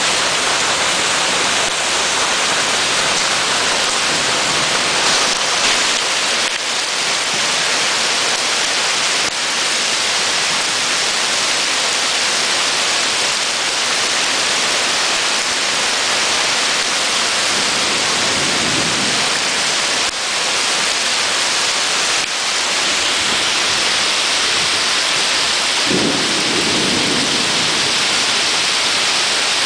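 Torrential cloudburst rain pouring down onto pavement, a dense, steady hiss. Two brief low rumbles come through, about two-thirds of the way in and near the end.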